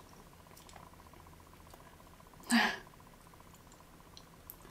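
Faint sticky clicks from marinated jellyfish strips being handled with chopsticks and fingers, with one short, louder sound about halfway through.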